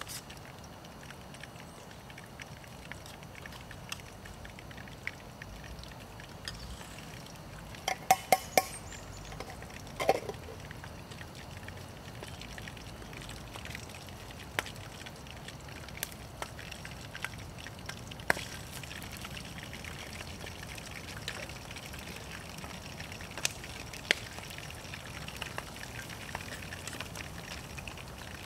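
Water trickling and dripping over a steady low hiss, with scattered small ticks. A quick cluster of sharp clinks comes about eight seconds in, and another clink about ten seconds in.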